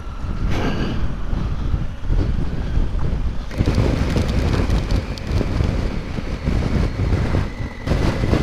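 Wind buffeting the microphone: a rough low rumble that surges and eases, growing louder and brighter about three and a half seconds in.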